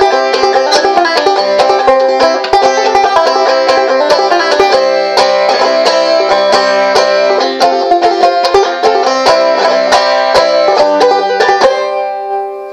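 Gold Tone White Lady Plus banjo played clawhammer style in C tuning: a quick, steady run of picked notes and brushed strums. About a second before the end the playing stops and the last chord rings out and fades.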